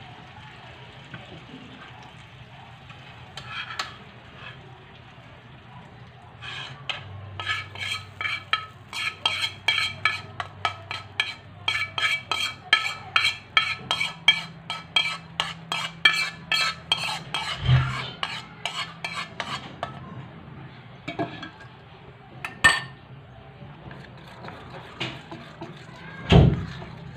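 Metal spoon stirring pancake batter in a bowl, clinking against the bowl's side about three times a second with a ringing tone for roughly a dozen seconds. A few separate knocks follow, the loudest a sharp knock near the end.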